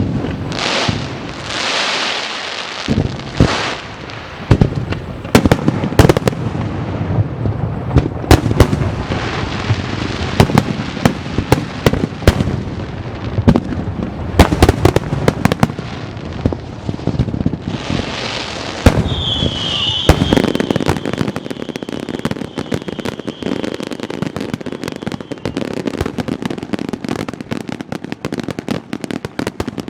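Aerial fireworks going off: a run of loud bangs mixed with hissing swells, then about two-thirds in a high whistle followed by dense, rapid crackling.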